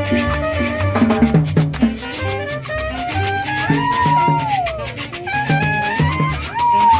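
Salsa-style Latin dance music: a brass melody that slides and bends in pitch over a steady bass line and percussion.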